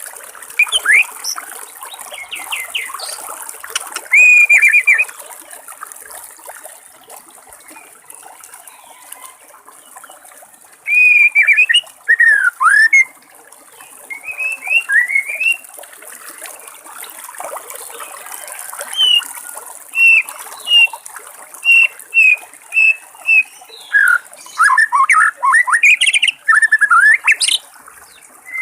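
White-rumped shama singing loud whistled phrases in separate bursts: rising and falling slurs, a run of short repeated notes, and a dense rapid burst near the end. A steady trickle of water runs underneath.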